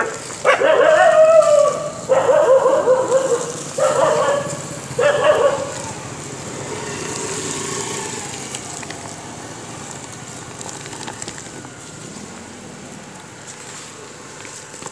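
Puppies whining and yelping: four long, wavering cries in quick succession, after which only a faint steady background remains.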